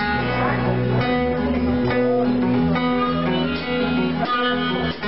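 Live acoustic band music: acoustic guitars strummed in a steady rhythm, with low notes held underneath.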